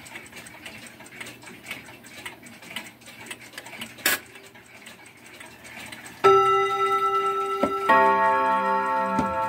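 Mauthe box clock ticking quietly, with a sharp click about four seconds in as the minute hand is pushed round to the hour. About six seconds in the clock begins striking, loud ringing chime notes coming about a second and a half apart.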